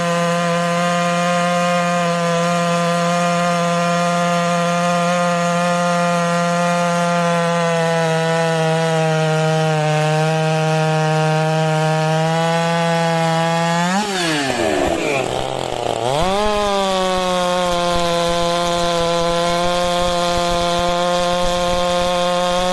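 Professional two-stroke chainsaws, a Husqvarna 572 XP and then a Stihl MS 462, running at high revs as they cut into a large log. The engine note holds steady, then about 14 s in it drops sharply in pitch and climbs back within two seconds.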